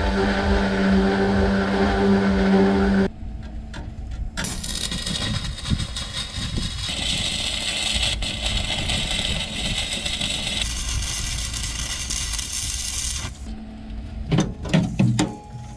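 Stick welder's arc crackling and hissing for about nine seconds, starting about four seconds in, as a steel backing plate is tack-welded inside a steel yacht's keel. It is preceded by a steady motor hum that cuts off abruptly about three seconds in, and followed by a few sharp knocks near the end.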